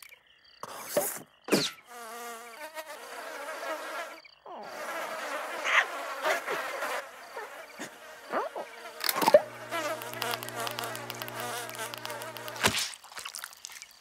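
Cartoon sound effects of flying insects buzzing, the pitch wavering as they swoop. There are a few quick whooshes in the first two seconds, and a low steady hum joins from about nine seconds in until shortly before the end.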